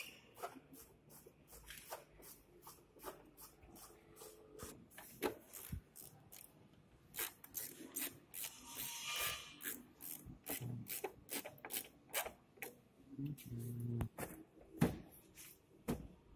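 Plastic front bumper and trim of a Hyundai Solaris being handled and probed with a hand tool: irregular clicks and taps, with a longer scraping rub about eight to ten seconds in.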